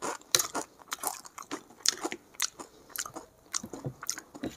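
Close-miked chewing of a mouthful of rice and egg curry: a run of irregular mouth clicks and smacks.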